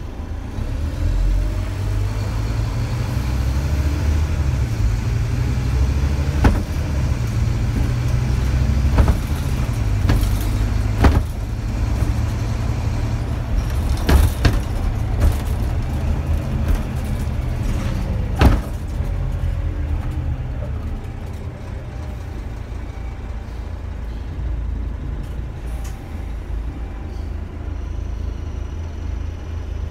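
Scania DC9 five-cylinder diesel of a Scania Omnidekka double-decker bus under way, with a deep engine drone whose note rises over the first few seconds as the bus pulls. Sharp knocks and rattles from the body come through several times, and the engine settles to a quieter, steadier note about two-thirds of the way through.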